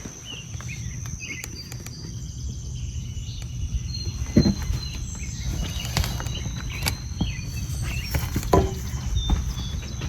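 Outdoor background with a steady high-pitched insect drone, a low rumble, and scattered light taps and clicks.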